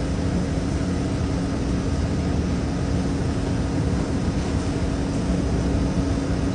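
Steady drone of running machinery: an even low rumble with a constant hum, unchanging throughout.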